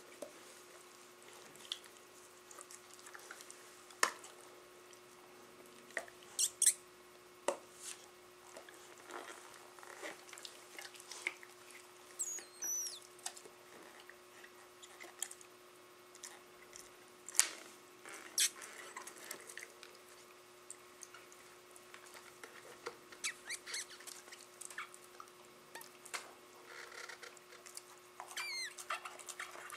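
Labradors and a Rottweiler puppy play-fighting: scattered clicks, taps and scuffles of paws and mouths, with two brief high squeaks that slide down in pitch, one near the middle and one near the end.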